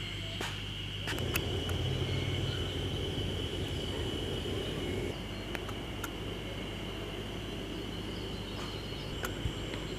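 Insects trilling in one steady high-pitched note throughout, with a low rumble swelling for a few seconds from about a second in, and a few light clicks.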